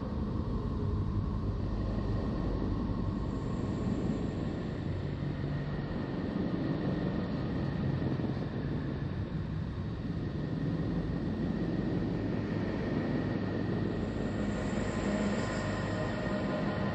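Sonified NASA Voyager recording presented as the sound of Neptune: a steady low rumbling drone with a hiss above it and a few faint held tones.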